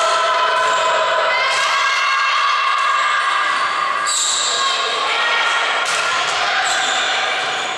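Girls' voices cheering and calling out in an echoing sports hall during a volleyball rally, loudest in the first half, with a few sharp thuds of the ball being struck.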